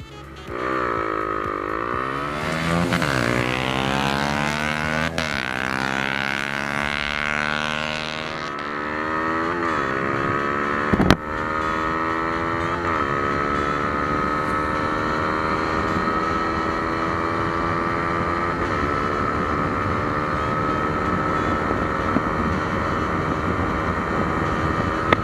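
Honda Supra GT-R 150 motorcycle engine accelerating hard from a standing start. Its pitch climbs and drops back at each of several gear changes in the first dozen seconds, then holds steady at high revs at speed. Wind rushes over the microphone, and there is a sharp knock about eleven seconds in.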